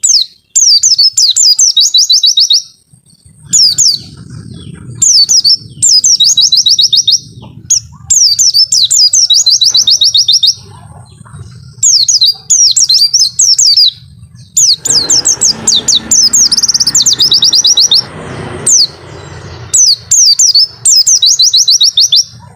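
White-eye (pleci) singing its long 'wit-wit' song: loud phrases of rapid, high, evenly repeated notes, each phrase lasting one to three seconds with short pauses between. A low hum and, past the middle, a few seconds of broader background noise lie underneath.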